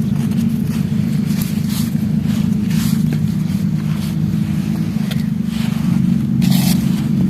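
Crunching bites into something dry and crumbly, sharp crackles every half second to a second, the loudest about six and a half seconds in. A loud, steady low hum runs underneath throughout.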